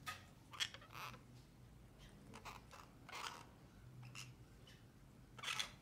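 Orange-fronted parakeets making about seven short, scratchy sounds at uneven intervals, the loudest near the end.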